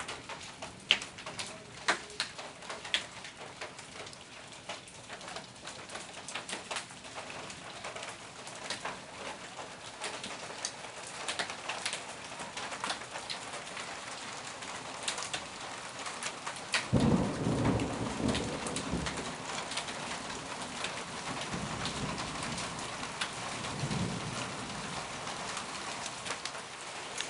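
Steady rain of a thunderstorm falling on hard surfaces, with sharp separate drop hits in the first few seconds. A rumble of thunder comes about two-thirds of the way through and lasts a couple of seconds, and a weaker rumble follows a few seconds later.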